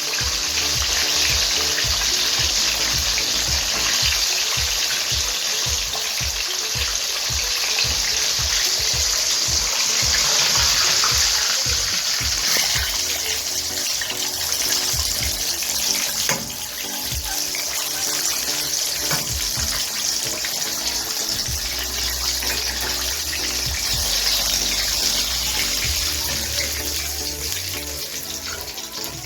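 Chicken wings deep-frying in hot oil, a steady loud sizzle with crackling throughout, under background music.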